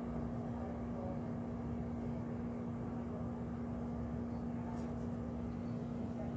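A steady hum with one constant low-pitched tone over a low rumble, unchanging throughout: background room noise.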